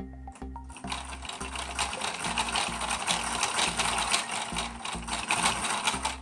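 Plastic toy gears on a Gears! Gears! Gears! windmill build spinning and meshing, a fast dense clicking clatter that starts about a second in, over background music.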